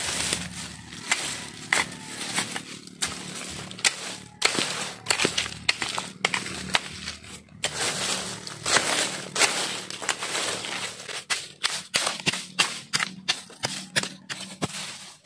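A bolo (machete) blade repeatedly chopping and scraping into dirt and dry leaves, covering a newly planted coconut with soil. The sharp chops are irregular and come faster near the end.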